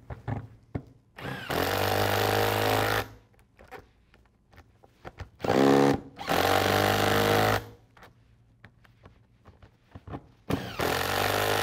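A power tool with a socket runs three times, about two seconds each, tightening the nuts of a Flexco bolt solid plate belt fastener so that the plates compress into the belt. The second run starts with a rising pitch as the motor spins up. Small knocks come between the runs as the socket is moved from nut to nut.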